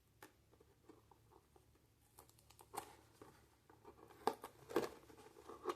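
Hands working at a sealed cardboard toy box that is hard to open: faint scattered clicks and scrapes that come more often as it goes, with a few louder taps in the second half.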